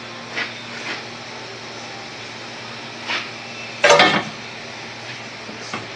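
Cat-back exhaust pipe and muffler clanking against the underside as they are pushed into place on the hangers: a few light knocks, then one louder clank about four seconds in, over a steady low hum.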